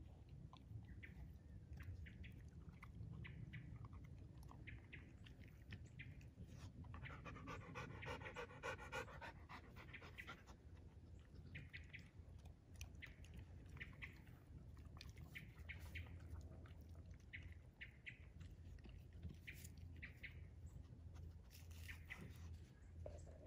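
Rottweiler eating raw meatloaf from a stainless steel bowl: faint, irregular wet chewing and smacking. A short, higher held tone sounds from about seven to ten seconds in.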